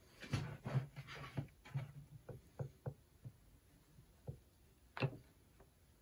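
Parallel-jaw bar clamps being handled and tightened on a glued-up board, giving clicks and light knocks. A quick run of small knocks comes over the first three seconds, then a single louder knock about five seconds in.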